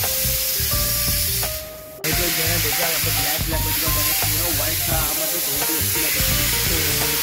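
Spray gun hissing steadily as underbody coating is sprayed onto a car's underside, under background music with a beat. About two seconds in, the sound dips and then cuts back in abruptly.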